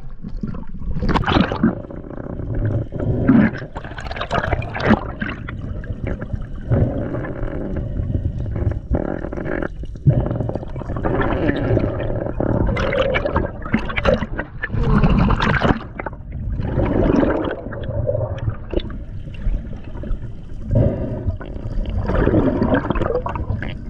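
Water splashing and gurgling around a spearfisher's camera, which moves between the surface and underwater, with bubbles streaming past; it comes in irregular swells a second or two apart.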